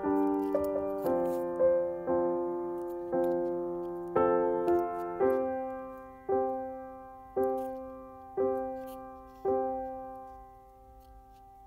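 Solo piano music: struck notes and chords that ring and decay, slowing to about one a second and dying away near the end.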